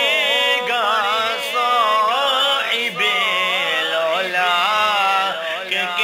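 A solo voice singing an Urdu Islamic devotional song (naat) in drawn-out, wavering melodic phrases, over a faint steady low hum.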